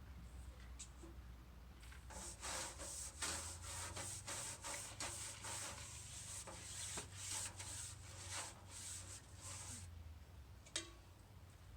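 Rubbing strokes of hand sanding on the old toolbox's painted surface, a few strokes a second. They start about two seconds in and stop near ten seconds, followed by a single sharp click.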